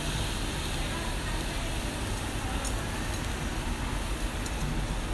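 Mackerel fillet sizzling on a wire mesh over a charcoal grill, with a few sharp crackles in the second half, over a steady low rumble.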